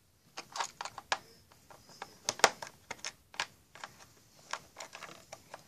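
Small plastic toy pieces clicking and tapping as they are handled and set down, in an irregular run of light clicks.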